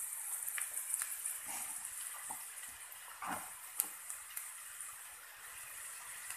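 Sliced onions sizzling in hot oil in a pan, with a steady high hiss, while a wooden spatula stirs them and gives scattered clicks and scrapes against the pan.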